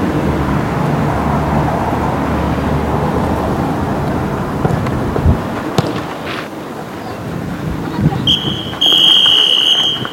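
Referee's whistle: a short toot about eight seconds in, then a long steady blast of about a second and a half. Before it, wind rumble on the microphone and a few sharp knocks.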